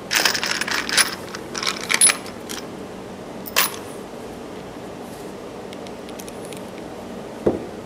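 Metal deck screws clinking and rattling in a plastic tub as a hand picks through them, a quick run of clicks over the first two and a half seconds. A single click follows about three and a half seconds in, and a duller knock near the end.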